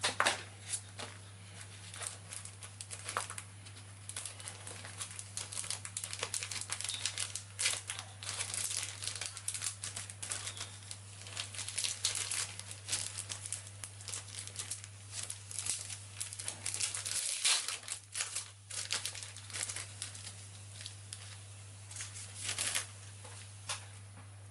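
Plastic model decal sheets being handled and sorted, with light crinkling and rustling of paper and plastic coming on and off, over a steady low hum.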